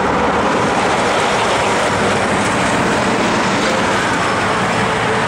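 Steady, loud road traffic noise: tyres and engines of cars going by on the road.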